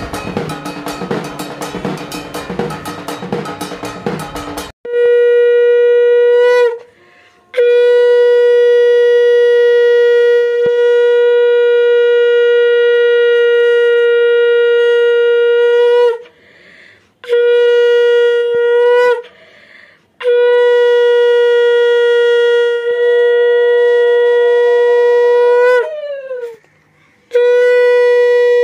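A conch shell (shankha) blown in five long, loud blasts on one steady pitch, each bending downward in pitch as it ends, after a few seconds of drumming at the start.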